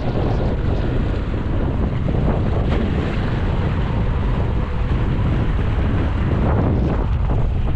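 Steady wind rumbling on the microphone, with sea waves washing beneath it.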